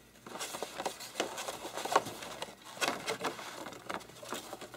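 White posterboard being handled and folded along its creases: irregular rustling and crinkling of stiff paper, with a few sharper crackles.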